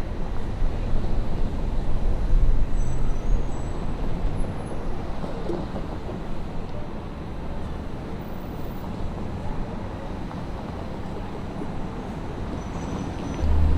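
City street traffic at night: steady traffic noise with a vehicle's low engine rumble, loudest in the first few seconds and then easing off. Near the end another vehicle's low rumble starts abruptly and louder.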